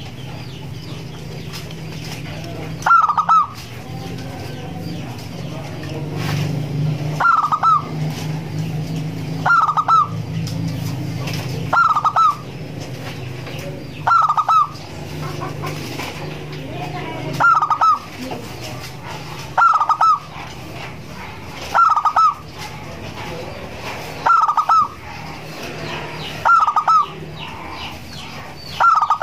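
Zebra dove (perkutut) singing: a short cluster of staccato cooing notes, repeated about every two seconds. A low steady hum runs underneath through the first half.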